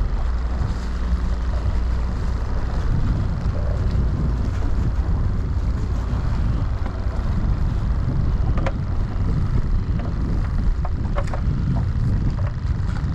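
Steady low rumble of wind buffeting the microphone over choppy water lapping against a small boat's hull. A few light clicks two-thirds of the way through and near the end come from the rope and bungee being handled.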